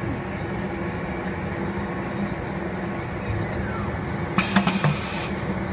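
Steady mechanical hum of a CNC router machine, with a brief cluster of sharp clicks and knocks a little over four seconds in.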